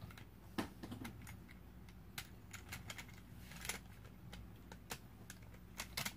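Hard plastic robot-kit parts clicking and knocking irregularly as they are handled and fitted together, a large yellow plastic gear ring being set onto the robot's plastic body.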